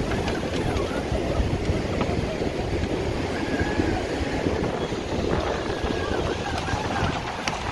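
Wind buffeting the microphone over the wash of surf, with a faint wavering whine that comes and goes in arcs about a second long.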